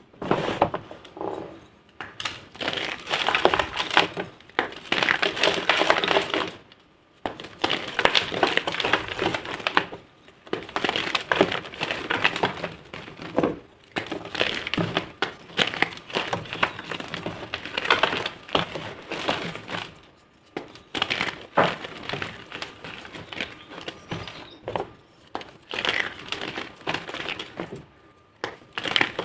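Blocks of gym chalk being crushed and crumbled into powder: dense crunching in repeated bouts of a second or two, with short pauses between them.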